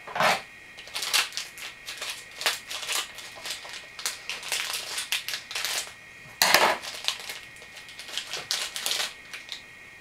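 Plastic and cardboard packaging crinkling and rustling in irregular bursts as it is handled and torn open, the loudest burst about six and a half seconds in.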